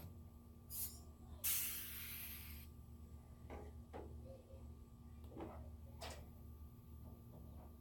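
Air-powered rivet gun: a burst of air hiss lasting about a second, then a few light clicks, over a faint steady hum.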